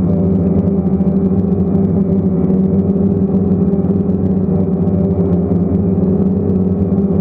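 DJI Phantom quadcopter's electric motors and propellers running in a low hover, a loud, steady buzzing hum heard up close from the camera mounted on the drone.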